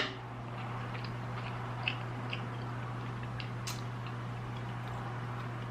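Quiet eating: a person chewing food, with a few faint, sharp mouth and utensil clicks scattered over a steady low hum.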